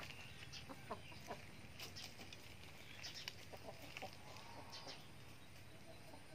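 Backyard chickens clucking softly in short, scattered calls, with occasional high chirps in the background.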